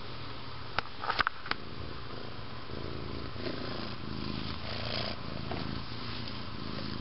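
Siamese cat purring, a low pulsing sound that sets in a few seconds in and swells and fades in waves. A few sharp clicks come about a second in.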